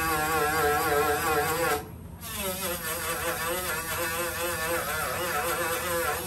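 Small corded rotary tool spinning a polishing wheel against aluminium skin, polishing out deburring scratches. It makes a high buzzing whine that wavers in pitch as the wheel is pressed and moved. The whine cuts out briefly about two seconds in, then picks up again.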